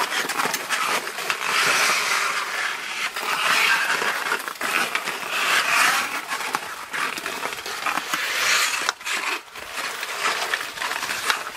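Ice skates scraping and carving over rink ice, with hockey sticks and the puck clacking sharply against the ice and each other many times.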